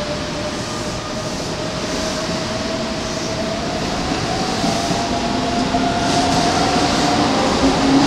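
Keikyu 600-series electric train pulling away from a station platform, its traction motors whining in a pitch that rises slowly as it gathers speed. In the second half, the wheels start clacking over the rail joints.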